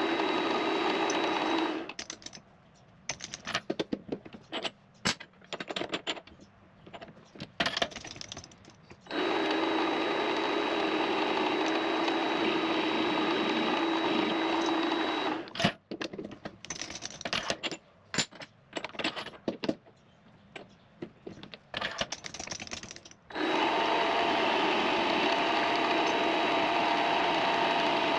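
Benchtop machine tool motor running steadily in three stretches, stopping about two seconds in and again about fifteen seconds in. Between the runs come irregular clicks and knocks of handling.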